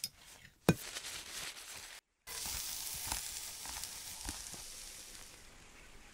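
Intro sound effect: a crackling hiss like food sizzling in a pan. It opens with a sharp click, cuts out for a moment about two seconds in, then returns with a few scattered clicks and slowly fades away.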